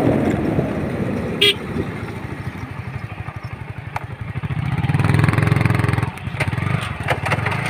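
Motorcycle engines running at low speed. A short horn toot sounds about one and a half seconds in, and the engine note grows louder about five seconds in.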